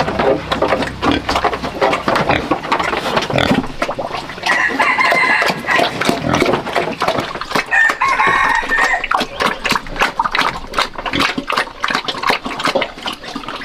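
A pig slurping and chomping wet mash from a feed pan, a dense run of wet smacks and clicks. A rooster crows twice, about four and a half seconds in and again about eight seconds in.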